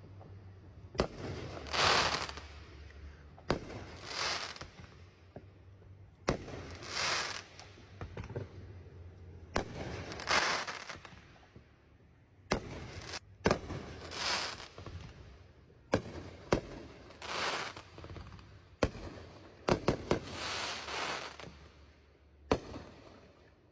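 Aerial fireworks going off: a sharp bang every two to three seconds, each followed by a swelling hiss lasting about a second, with a quick cluster of bangs around two thirds of the way through.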